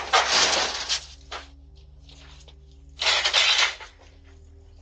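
Two bursts of rattling clatter, one at the start and one about three seconds in, as a bicycle is grabbed and moved off a porch. Heard through a doorbell camera's microphone, over a steady electrical hum.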